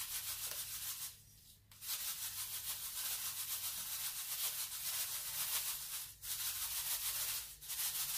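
Sugar pouring from its bag into a glass bowl of flour: a steady grainy hiss that breaks off briefly about a second in and twice more near the end.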